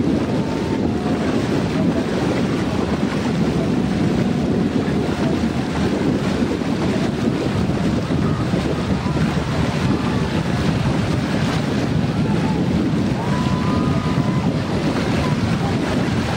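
Wind buffeting the microphone, a steady rumbling noise, with faint short drawn-out calls sounding now and then above it.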